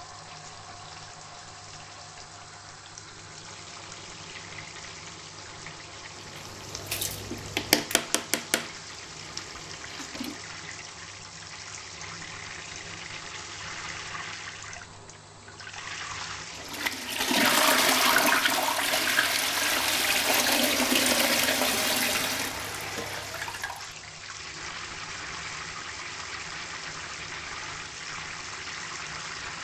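A toilet flushing: a loud rush of water lasting about six seconds past the middle, then a quieter steady water sound. Earlier, a quick run of sharp clicks over about a second and a half.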